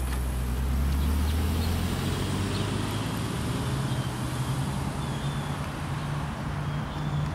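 Diesel locomotive approaching at the head of a loaded coal train, its engine running with a steady low drone. A few faint, short high chirps sound over it.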